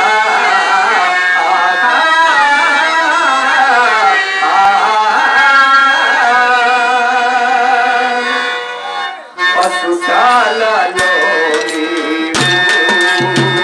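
Live Telugu folk song: a man sings a slow, wavering melodic line through a microphone over sustained accompaniment. Near the end a drum and jingling hand percussion come in with a beat.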